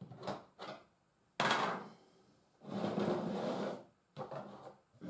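Model railway track pieces being handled and set down on a wooden baseboard: a few light knocks, two longer scraping slides, then more small clicks.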